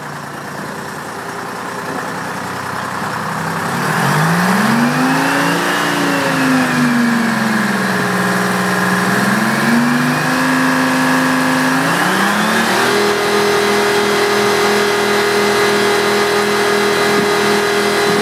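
The engine and hydraulic drive of a piling rig's power unit run under load. From about four seconds in the revs rise and fall in slow sweeps, and at about thirteen seconds they step up to a steady higher speed, as the rotary drive head is worked.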